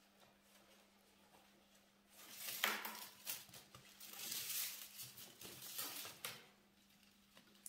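Binding cane being pulled tight and wound around soaked willow bottom sticks. It makes dry rustling and scraping that starts about two seconds in, with a sharp click near three seconds.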